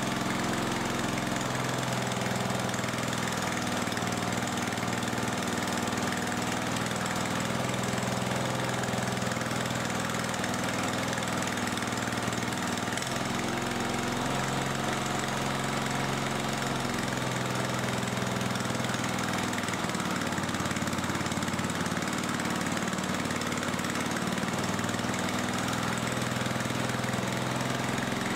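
Freshly rebuilt Briggs & Stratton 17.5 HP air-cooled engine running steadily on a riding mower after its first start, its speed shifting slightly now and then. The owner thinks the carburetor is not set properly.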